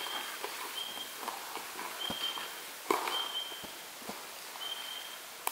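Footsteps of two people walking on a dirt and leaf-litter forest track, with a louder step or knock about three seconds in. A short, high, steady whistle repeats about once a second in the background.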